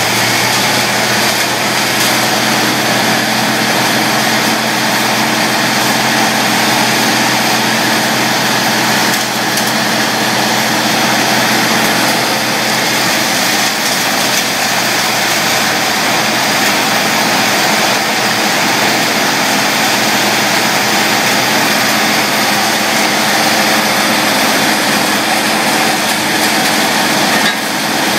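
Tow-behind brush chipper running steadily, a loud, even engine drone with a wide rushing noise over it and no pauses.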